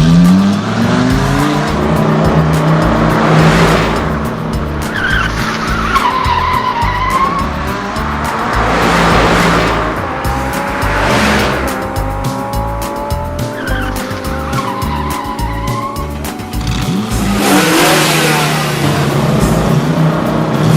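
Cartoon vehicle sound effects: car engines revving, tyres squealing and cars whooshing past several times, over background music with a steady beat.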